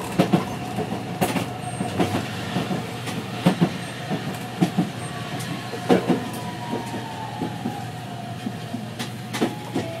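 Toden Arakawa Line streetcar running on its rails, heard from the cab, with irregular sharp clacks and knocks from the wheels and track. A thin whine falls slowly in pitch from about halfway through as the tram slows towards the stop.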